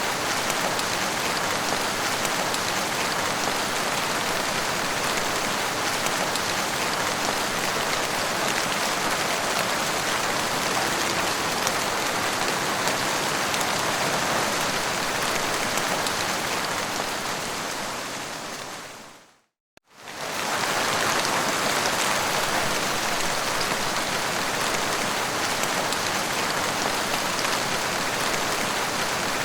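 Heavy rain falling steadily as a dense, even hiss, with no thunder. About two-thirds of the way through it fades out to a moment of complete silence and then comes straight back: a loop or edit point in the recording.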